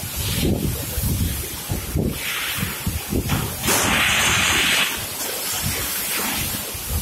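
Strippit LVD Siena 1212 CNC turret punch press working a metal sheet: an uneven rumble with knocks, and two bursts of hiss, the second and louder one about four seconds in.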